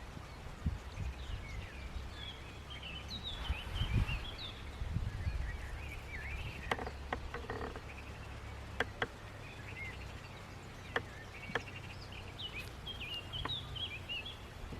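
Small birds chirping and twittering in quick phrases, in two bouts near the start and near the end, over a steady low rumble, with a few sharp clicks in between.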